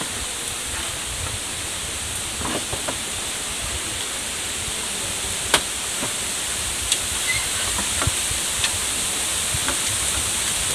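Scattered knocks and clicks of bamboo slats as a woven bamboo panel is worked into a bamboo frame, the sharpest about five and a half seconds in, over a steady high hiss.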